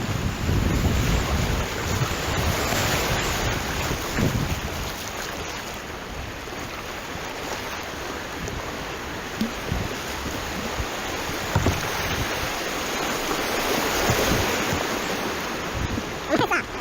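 Steady rush of river water around a kayak running downriver, mixed with wind noise on the microphone.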